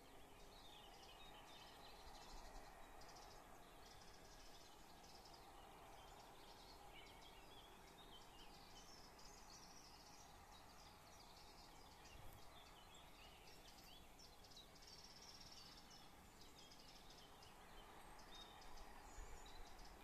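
Faint birdsong: many short chirps and trills from several small birds, over a quiet steady background hum.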